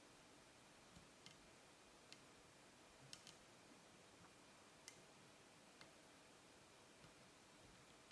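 Faint, scattered clicks of a lock pick working the pin stack of an American 5200 series padlock, pins being pushed up one by one as the core moves into a deep false set.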